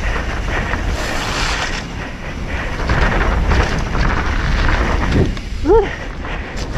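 Wind rushing over an action camera's microphone as a downhill mountain bike descends a wet, muddy dirt trail, with the bike rattling over the ground throughout. Near the end, a brief vocal exclamation whose pitch rises then falls.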